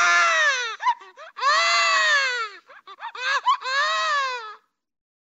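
Cartoon baby crying sound effect: three long, high-pitched wailing cries, each rising and then falling in pitch, with short sobbing catches of breath between them. It stops about four and a half seconds in.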